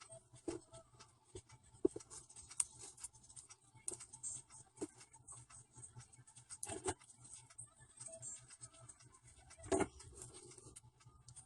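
Irregular light scratching and small clicks from hands working on a fingernail, with a few sharper taps around the middle and near the end, over a faint steady low hum.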